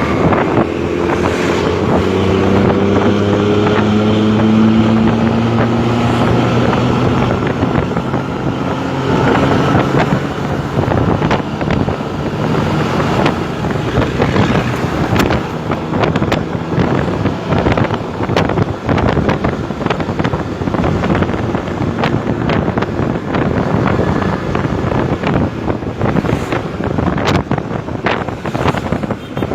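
Bus engine and exhaust with a snoring, growling note, pulling away with its pitch rising steadily over about the first ten seconds. After that it turns into a rough, noisy rumble mixed with wind buffeting on the microphone.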